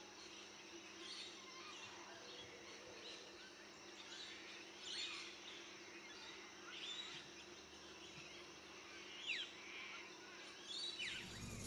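Faint outdoor ambience with birds calling: short, downward-sweeping chirps every second or two, the sharpest about nine seconds in. A louder noise comes in just before the end.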